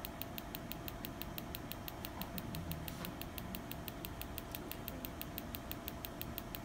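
PiezoWave Vet piezoelectric shockwave applicator firing a steady train of sharp clicks, about four a second, as it delivers shockwave therapy pulses to a dog.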